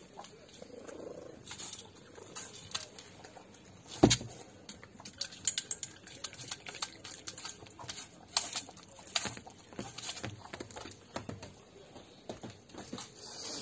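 A small dog eating wet food from a metal bowl: quick wet chewing and licking, with its teeth and tongue clicking against the bowl. There is one loud knock about four seconds in.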